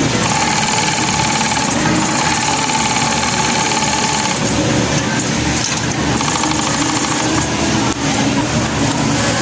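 Industrial overlock sewing machine running as it stitches a shirt's side seam, with a steady hum from about a second in to about four seconds, over the constant din of a garment factory's machines.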